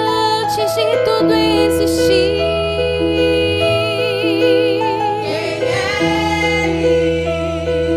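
Women's vocal group singing a slow gospel praise song in long held notes with vibrato, over sustained keyboard chords.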